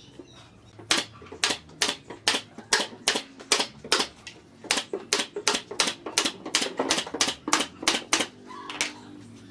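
Hammer blows on wood in a steady run of about two to three sharp strikes a second, starting about a second in and stopping shortly before the end.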